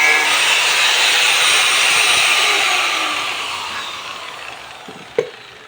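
Angle grinder spinning down after being switched off: its hiss and whine slowly fade and fall in pitch. A single sharp click comes about five seconds in.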